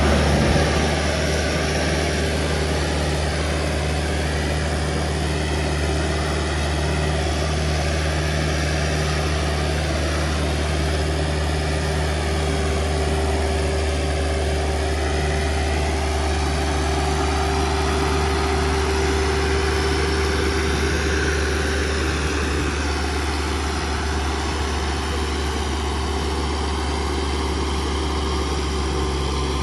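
Preet 6049 tractor's diesel engine running steadily under heavy load while pulling two 16-disc harrows, a constant deep drone.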